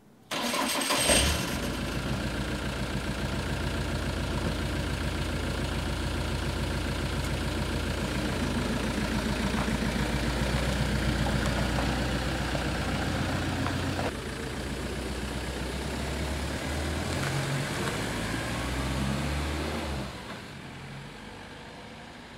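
Ford Transit van's diesel engine starting about half a second in, then running steadily at idle. Later its pitch shifts as the van pulls away, and the sound fades near the end as it drives off.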